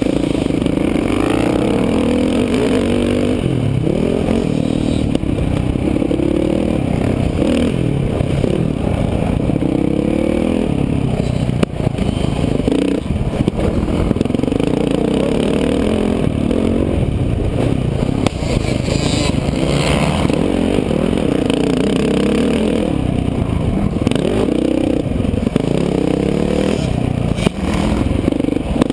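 Motocross dirt bike engine ridden hard on a dirt track, revs rising and falling over and over through gear changes and corners. It is loud and close, heard from on the bike itself.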